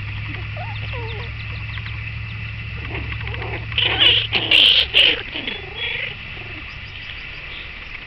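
Small animals calling: a run of short squeaks and chirps, with a loud burst of high shrill calls about four to five seconds in. A steady low hum runs underneath and stops about halfway through.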